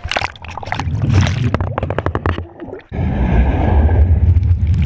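Pool water splashing and sloshing over an action camera held at the surface, with many sharp splash clicks. About three seconds in the camera goes under, and the sound turns to a muffled, steady underwater rumble.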